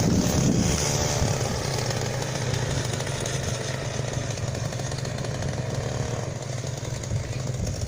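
Small two-stroke chainsaw engine driving a homemade motorbike, running steadily at speed and gradually getting quieter.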